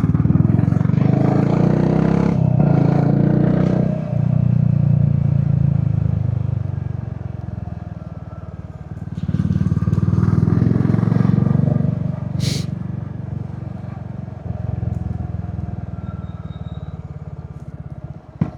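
Royal Enfield Hunter 350's single-cylinder engine running through an aftermarket exhaust while riding, the exhaust note rising and falling as the throttle is opened and closed. A single sharp click a little past the middle.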